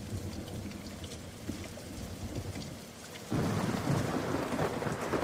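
Rain and thunder, a thunderstorm with steady rain; a louder rumble of thunder breaks in about three seconds in.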